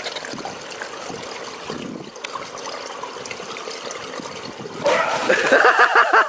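Swimming-pool water lapping and trickling. About five seconds in the sound jumps louder and a person breaks into loud, rapid laughter.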